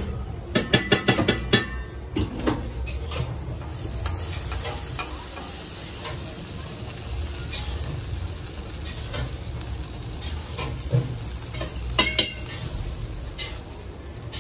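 Batter sizzling steadily on a hot griddle, with a quick run of metal spatula clinks and scrapes in the first couple of seconds and another clink near the end.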